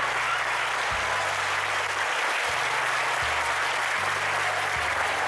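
A crowd applauding steadily, with music and a low bass line playing underneath.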